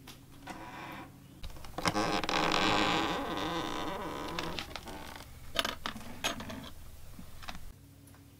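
An old leather-covered trunk being handled and shut: a stretch of rustling and scraping, then a couple of sharp clicks like its latches being fastened.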